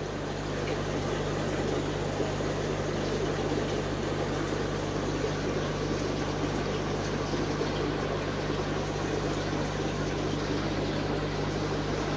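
Steady bubbling and gurgling of air-driven aquarium sponge filters, over a steady low hum.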